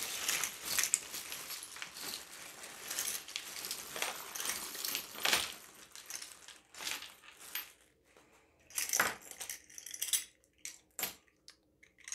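A clear plastic bag crinkling as a heap of metal costume jewelry is tipped out and spread by hand, the pieces clinking and jangling against each other. After about eight seconds it thins to scattered separate clicks as single pieces are handled.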